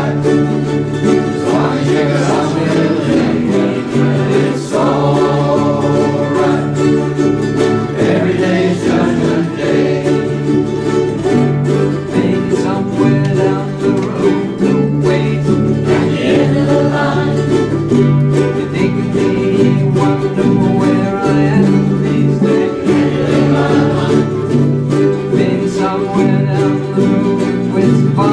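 Several ukuleles strummed together in a steady rhythm, with voices singing along.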